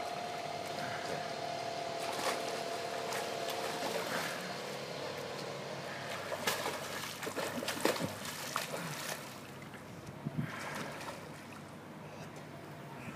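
Water splashing and sloshing as a child swims through a swimming pool, with a busier run of splashes in the middle and quieter lapping near the end. A steady mechanical hum sounds under the water for the first few seconds, then fades.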